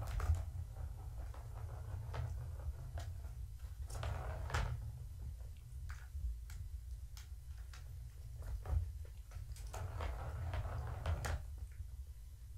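Plastic ball rolling and rattling around the track of a Catit trackball toy as kittens bat at it, in spells near the start, around four seconds in and around ten seconds in, with scattered clicks and knocks. A steady low hum runs underneath.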